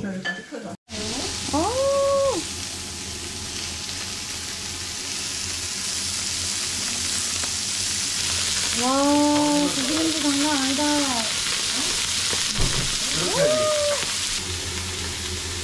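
Strips of pork belly sizzling on an electric grill plate, a steady hiss that starts about a second in. A few short pitched tones rise, hold and fall over it: once near the start, several in a row in the middle, and once near the end.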